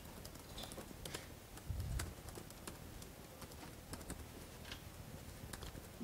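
Typing on a laptop keyboard: faint, irregular key clicks as a shell command is entered, with a low thud about two seconds in.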